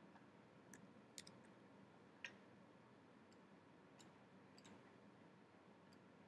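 Near silence with a handful of faint, sharp computer mouse clicks, the loudest about two seconds in.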